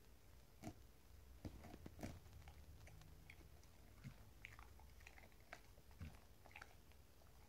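A dog chewing and gnawing a knotted rope toy: faint, irregular clicks of teeth and jaws, a few of them louder.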